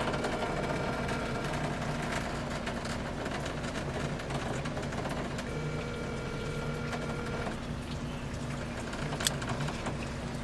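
Steady engine and road noise heard from inside a moving vehicle's cabin, with faint steady hum tones and a single sharp click about nine seconds in.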